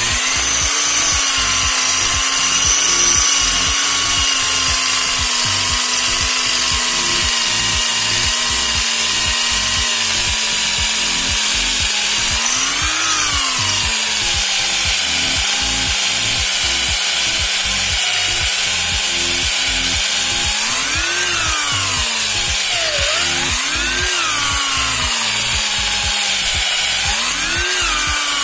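Corded electric hand drill running continuously as its bit bores into a steel part. The motor whine holds steady at first, then rises and falls in pitch several times in the second half as the load on the bit changes.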